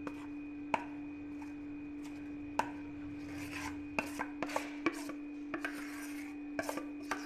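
Spatula scraping thick cake batter out of a glass container, with a dozen or so sharp clicks as it knocks against the rim and a few short scrapes. A steady low hum runs underneath.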